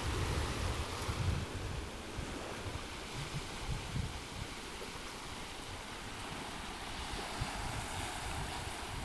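Small waves breaking and washing up a sandy shore, with wind buffeting the microphone in gusts, strongest in the first second or so.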